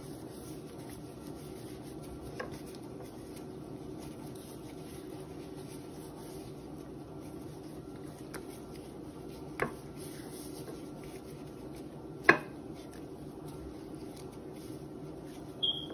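A gloved hand rubbing seasoning into raw catfish fillets on a plate: soft handling sounds over a steady low hum, with a few sharp clicks, the loudest about twelve seconds in, and a short high squeak near the end.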